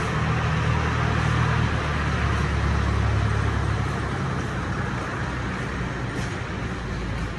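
A road vehicle running: a steady low engine rumble with road noise. It swells over the first second or two and eases off after about four seconds.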